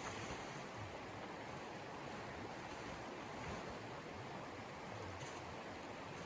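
Steady rushing wind of a snowstorm, an even roar with no breaks.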